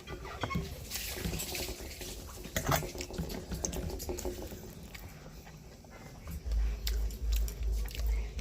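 Close-miked eating of a cabbage fritter: scattered crisp bites and wet mouth clicks, then from about six and a half seconds in a regular low pulsing of chewing, about two to three chews a second.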